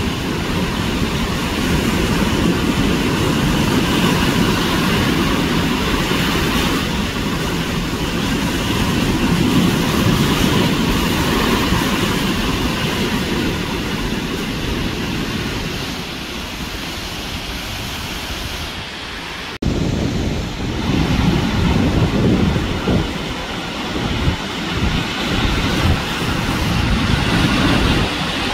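Sea surf washing onto the shore with wind buffeting the microphone: a steady rushing noise with heavy low rumble. It breaks off abruptly about two-thirds of the way through and comes back with the wind in uneven gusts.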